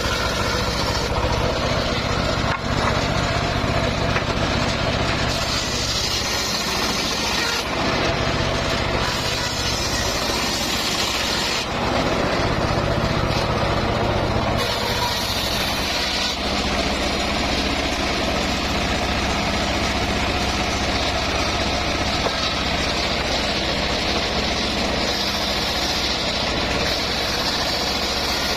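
Homemade engine-driven circular sawmill running steadily while its blade rips through mahogany, the higher cutting noise swelling and easing several times as the wood feeds through.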